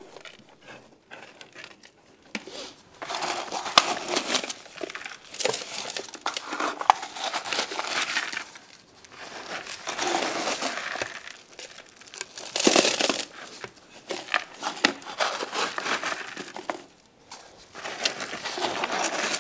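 Gravel and dirt backfill poured from plastic cups into a small box around a thin sheet-metal pipe: a run of separate pours, each a gritty rattle and hiss of sliding soil with sharp clicks of stones, the loudest about two-thirds of the way through.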